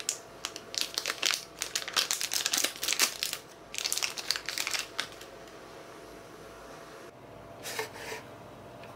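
Plastic snack pouch crinkling in the hands as it is handled and opened, with a run of dense crackles that stops about five seconds in. A short, faint noise follows near the end.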